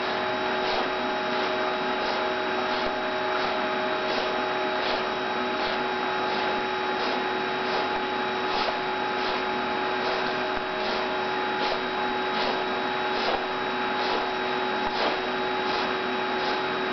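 Hydrotherapy pool's pump and water jets running steadily with a hum, the water churning, and light splashing about twice a second from a dog paddling.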